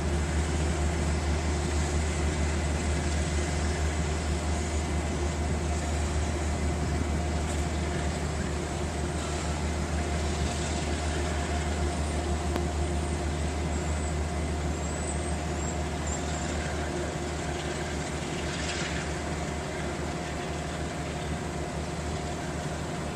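Diesel locomotive engine running with a steady low drone, growing slightly fainter toward the end.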